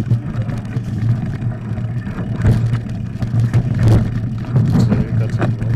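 Mountain bike riding over rough ground, recorded on board: a steady low rumble with irregular rattles and knocks from the bike.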